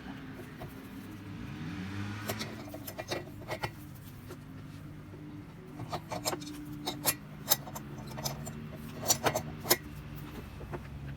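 Irregular metallic clicks and clinks of hand tools working on the air compressor's pressure regulator fittings as the old regulator is unscrewed, over a steady low hum.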